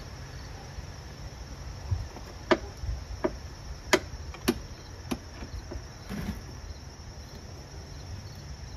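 A handful of sharp metal clicks and light knocks as a lawnmower's rear-drive gearbox cover and its screws are handled, about six in a few seconds around the middle. A steady high insect chirring of crickets runs underneath.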